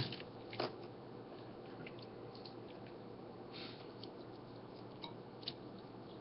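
Faint handling noises: a few soft clicks and rustles as fingers unplug and re-plug the ESC signal-lead connectors on a quadcopter's flight controller, over a low steady hiss.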